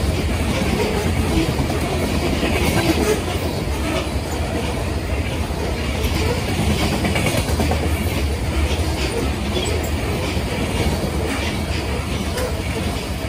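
Covered hopper cars of a freight train rolling past, a steady low rumble with frequent sharp clicks and clacks of the wheels over the rails.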